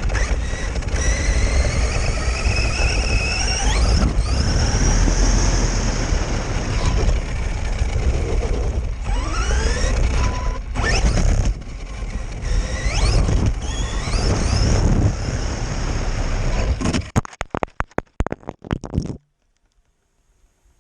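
Maverick Quantum Flux electric RC car's brushless motor whining at speed on a 3S battery, with a heavy low rumble underneath. The whine rises in pitch as the car accelerates, at the start, around 9 seconds and around 13 seconds in. About 17 seconds in the sound breaks up into short stutters, then stops.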